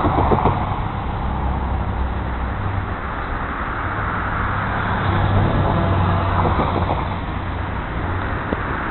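Alco RS-32 diesel-electric locomotive passing close by, its V12 diesel engine running with a steady low rumble that swells slightly midway.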